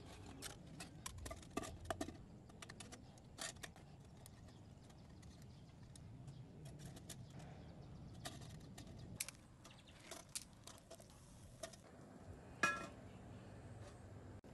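Scattered light clicks and metallic clinks as a folding stainless-steel firebox stove is handled and set up, with one louder ringing clink near the end.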